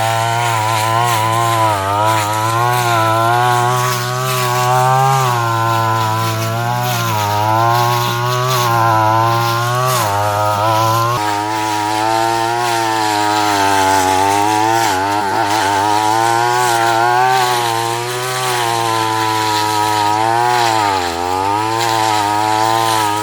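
Small engine of a grass-cutting machine running continuously, its speed wavering up and down, with deeper dips in pitch about 10, 15 and 21 seconds in, as when it bogs under load.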